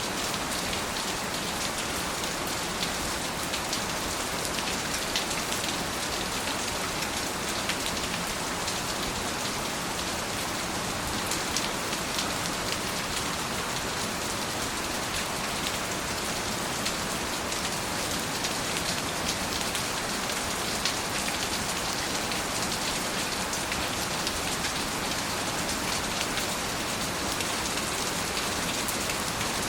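Steady rain falling on a surface, an even hiss sprinkled with many small, sharp drop clicks.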